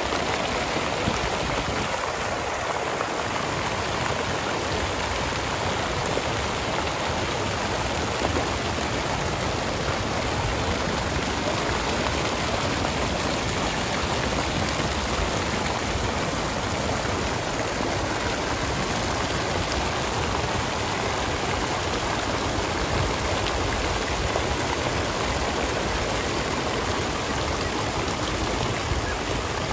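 Many small fountain jets arcing and splashing steadily into a shallow pool.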